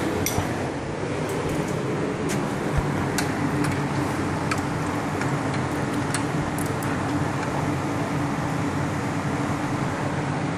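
Steady mechanical hum throughout, with scattered light clicks and clinks of metal parts and tools being handled at a vehicle's front wheel hub.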